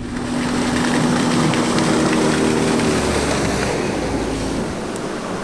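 Dinghy outboard motor running under a steady hiss of wind and water on rough water. The motor's hum fades out about four seconds in.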